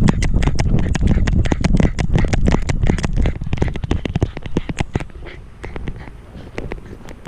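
Rapid clattering and knocking from a GoPro camera jolting on a loose dog harness as the dog runs, over heavy wind and handling rumble on the camera's microphone. It is loudest in the first few seconds and eases after about five seconds as the dog slows.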